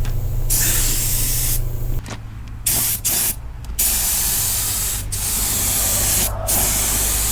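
Spray gun hissing in repeated bursts as its trigger is squeezed and released, over a steady low hum.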